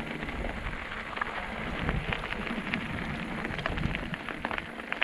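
Mountain bike rolling fast over a gravel track: tyres crackling over loose stones with a steady low rumble, many small clicks and rattles throughout.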